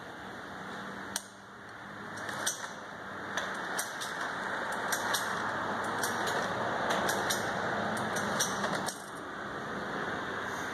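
Distant walk-behind lawn mower, its blade removed, being pull-started and not catching: a rushing noise that builds and cuts off sharply near the end, with scattered sharp clicks.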